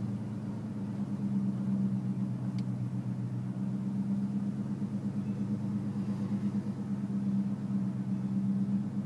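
Car engine and road noise heard from inside the cabin while driving slowly: a steady low hum with a fine rapid pulsing. A single sharp click about two and a half seconds in.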